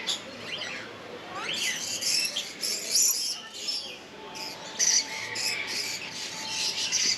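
Parrots calling: a dense run of high chirps and screeches, with a few short rising calls.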